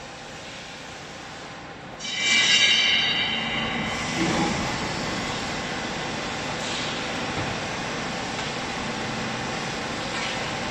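Vertical hydraulic bagging baler starting a cycle: after a low hum, a loud high-pitched whine starts about two seconds in and lasts about two seconds, then gives way to steady machine running noise.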